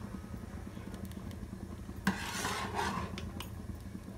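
Metal ladle stirring and scraping thick kheer in a steel pot, with a sharp clink of the ladle against the pot about two seconds in, followed by about a second of scraping, over a steady low hum.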